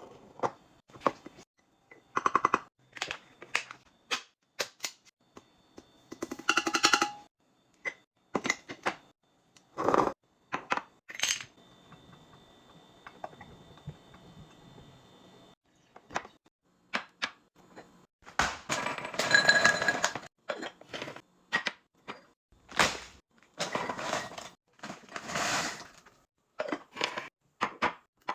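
Containers and packaged items being handled and set into a fridge: a string of sharp clicks, knocks and clinks of plastic and glass, with a few longer bursts of crinkling packaging.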